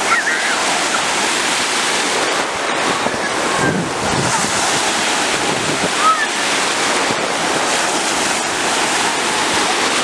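Sea surf breaking and washing through the shallows, a steady rush of waves.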